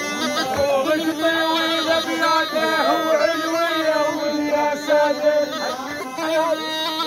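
Reed pipe playing a choobi dance tune: a long held note under a wavering, ornamented melody, in a bagpipe-like continuous sound.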